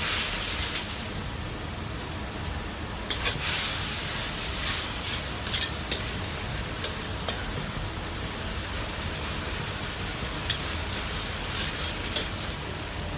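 Noodles and sauce sizzling in a hot carbon-steel wok as a ladle stirs and scrapes, over the steady rumble of a gas wok burner. The sizzle flares loudest at the start and again about three seconds in, with a few short clinks of the ladle later on.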